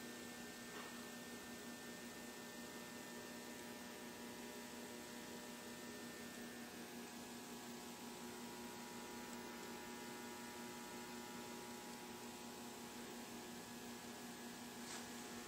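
Steady electrical hum over a low hiss, with a faint click near the end.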